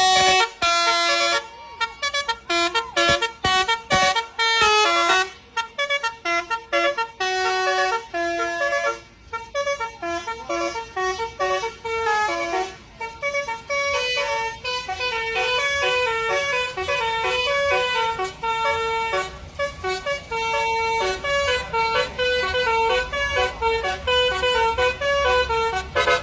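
Bus telolet horn, a multi-trumpet 'basuri' air horn, playing a tune of short, quickly changing notes, with brief breaks in the first half and running almost without pause later. A low rumble underneath grows stronger in the second half.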